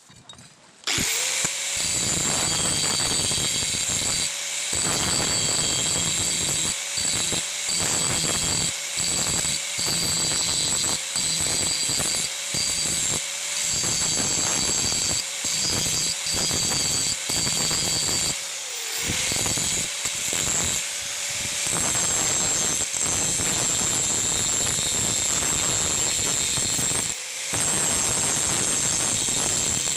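Handheld power tool running hard with a high whine, its sound dipping briefly over and over, about once a second, through much of the run.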